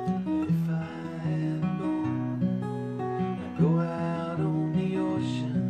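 Acoustic guitar playing chords in a steady rhythm, an instrumental passage between sung lines of a folk song.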